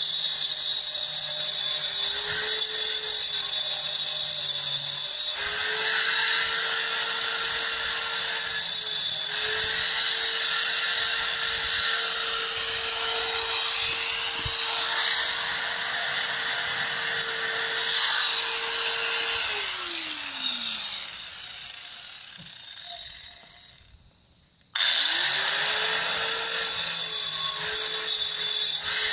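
Corded electric angle grinder running and grinding, its whine dipping as it is pressed into the work. About two-thirds through it is switched off and spins down. A few seconds later it starts again and runs on.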